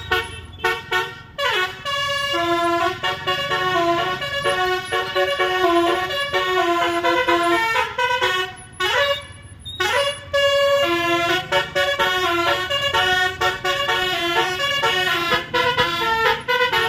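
Bus basuri horn, a multi-note telolet-style musical air horn, playing a melody of held and short honked notes. Quick staccato notes open and close it, and the pitch slides down twice, about a second and a half in and again around nine seconds.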